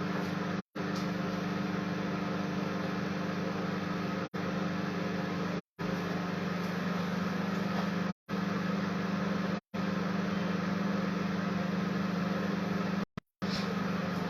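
Steady machine hum with a low drone and an even hiss, cut off abruptly for a fraction of a second six times, like edits between clips.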